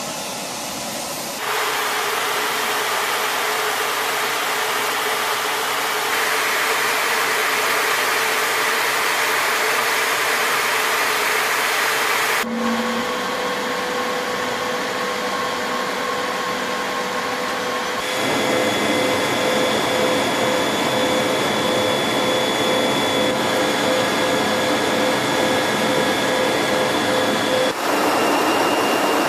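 Steady jet engine and airflow noise of a B-52H bomber heard inside the cockpit, with a couple of steady whining tones over it. The sound changes abruptly several times, stepping louder about a second and a half in.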